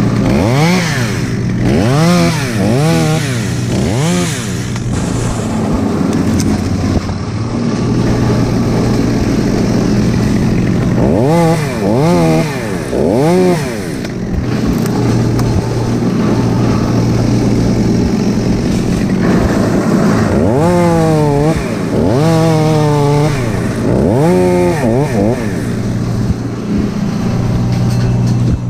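Chainsaw throttled up and down in quick revs, in three short bursts of cutting, over a steady engine drone running underneath.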